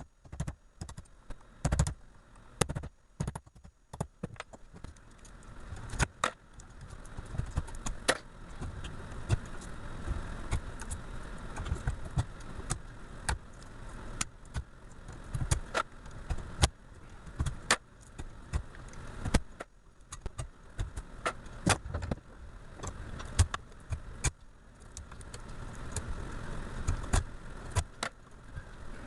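Copper winding bars being pried and pulled out of a starter motor armature with pliers: irregular metallic clicks and clinks over scraping and rattling of metal on metal.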